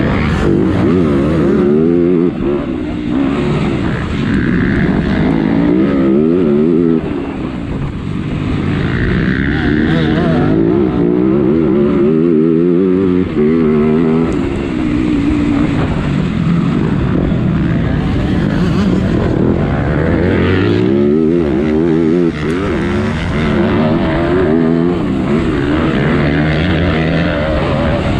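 MX2 motocross bike engine, heard close up from a camera on the bike, racing hard: the revs climb and drop again and again as the rider shifts and throttles through turns and straights.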